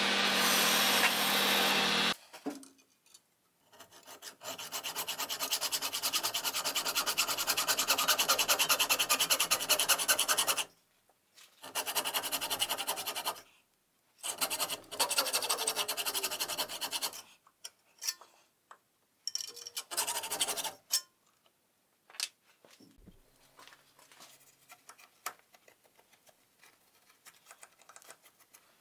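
Metal lathe running briefly and then switched off about two seconds in. A hand hacksaw then cuts through a metal bar held in the lathe's four-jaw chuck, in several bouts of quick, even rasping strokes, the longest and loudest a few seconds in. Near the end come only light scattered clicks and taps.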